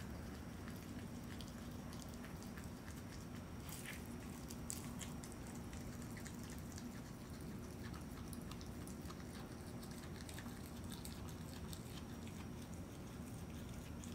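Virginia opossum chewing and tearing at a rotisserie chicken carcass: scattered crunches and sharp clicks, the loudest about four to five seconds in, over a steady low hum.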